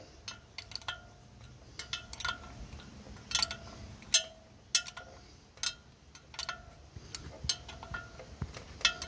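A metal spanner clinking against the fan bolts as they are snugged up a little at a time. There are about a dozen sharp, ringing clinks, spaced irregularly, roughly one every half second to second.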